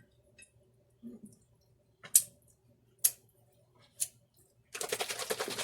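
A few sharp clicks of kitchen utensils against dishes. Near the end comes a fast, steady, rapid clatter of a homemade dressing of Duke's mayonnaise and buttermilk being mixed in a small container.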